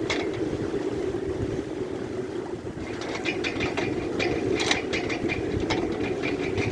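Wind blowing over a moored sailboat, a steady rush. From about three seconds in, the sails add a quick run of flapping and rattling.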